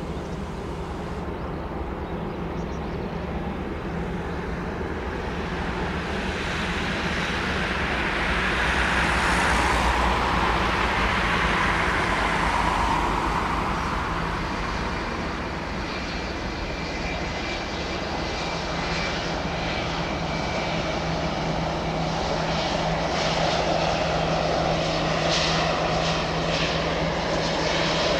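Boeing 757 freighter's jet engines running as it rolls along the runway, a steady rushing noise with a low hum. It swells to its loudest about ten seconds in, eases, then rises again near the end.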